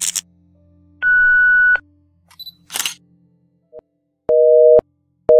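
Intro sound effects: a single steady high beep about a second in, a short sharp click-like burst, then a telephone busy-signal tone. The busy signal is a two-note beep pulsing on and off about once a second, starting near the end.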